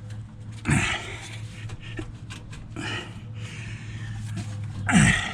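A man grunting and exhaling hard twice with effort, with scattered light clicks of metal being handled and a steady low hum in the background.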